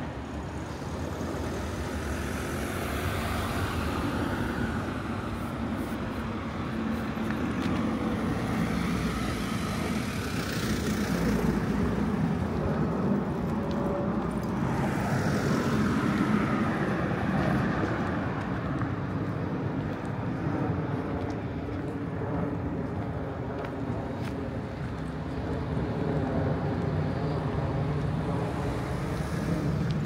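City road traffic passing by, a steady outdoor wash of vehicle noise with vehicles swelling up and fading away, loudest about a third and halfway through.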